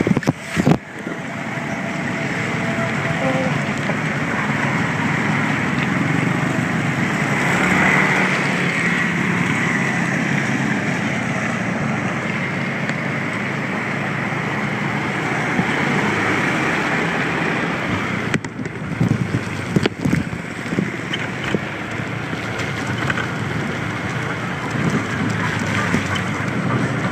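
A moped running along a road, with wind rushing steadily over the microphone, and a few sharp knocks about two-thirds of the way through.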